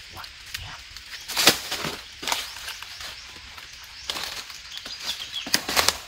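Parakeets shifting about on a hollow tree trunk: a string of sharp wing flutters and rustles, the loudest about one and a half seconds in and a quick cluster near the end.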